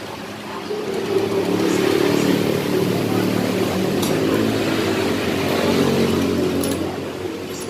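A motorcycle engine running, growing louder about a second in and easing off a little near the end.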